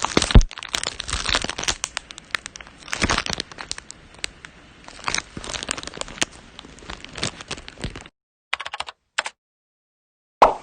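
Foley sound of an egg hatching: a dense run of crackling and crunching like shell breaking, with a sharp crack about half a second in. It stops abruptly about eight seconds in, followed by a few short separate bursts, one near the end.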